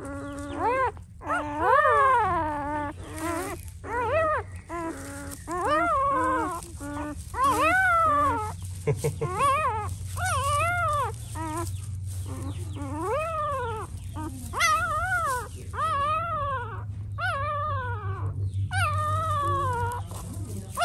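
Newborn livestock guardian dog puppies crying and whimpering: a string of short, high-pitched cries, about one a second, each rising and then falling in pitch.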